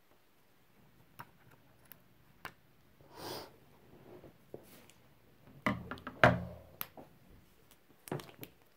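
Hands weeding heat transfer vinyl: the clear plastic carrier sheet and peeled vinyl scraps crinkle and rustle, with scattered small clicks and taps. A brief swish comes about three seconds in, and the loudest crinkling handling, with some thumps, about six seconds in.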